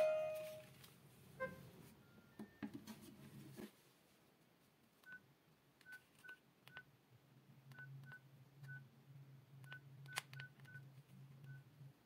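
Alcatel flip phone's keypad beeping as a phone number is dialled: about a dozen short, faint beeps of the same pitch, each with a small key click, at an uneven typing pace through the second half. Before that, the last note of a ringtone melody dies away and there are a few handling clicks.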